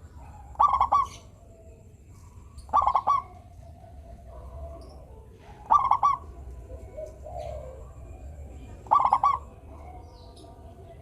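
Zebra dove (perkutut) cooing: four short phrases of quick staccato notes, spaced two to three seconds apart, with fainter cooing between them.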